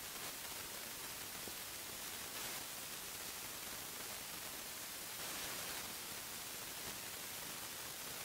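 Steady hiss with no distinct sound standing out of it, a little louder for a moment about five seconds in.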